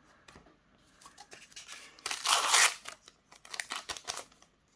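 Foil trading-card booster pack being handled and torn open. A loud crinkling rip comes about two seconds in, followed by a run of short crackles.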